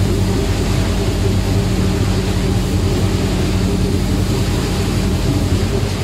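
Chili pepper dry cleaning machine running steadily, with a constant low motor hum and a continuous noise as chili peppers tumble over its perforated stainless-steel screen.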